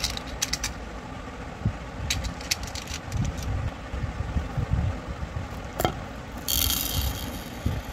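Clicks and knocks of small plastic candy containers being handled over a plastic bowl, with a brief squeak near the middle. Near the end a short hissing rattle of tiny sugar-coated candies spilling from a hand into the bowl.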